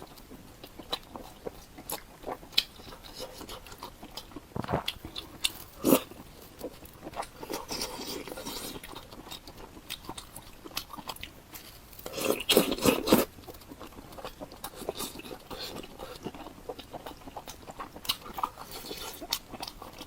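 Close-miked eating sounds: a person biting and chewing, with scattered short mouth clicks and a louder cluster of bites about twelve seconds in.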